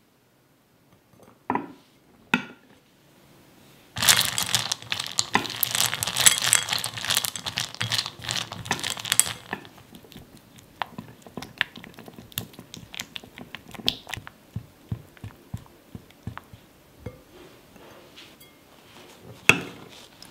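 Dark chocolate chips poured into a glass bowl, a dense rattle lasting about five seconds, followed by a silicone spatula stirring and scraping the melting chocolate in the glass bowl with light clicks and taps. Two short knocks come before the pour, and one sharper knock near the end.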